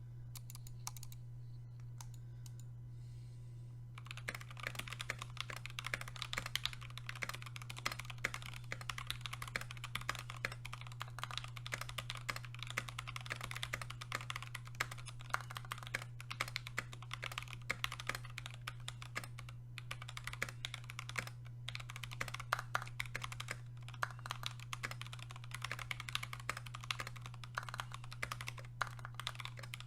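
Fast, continuous typing on a custom Epomaker/Skyloong GK68XS hot-swap mechanical keyboard fitted with lubed EV-02 linear switches and EPBT Cool Kids PBT keycaps. After a few scattered keystrokes, steady typing begins about four seconds in.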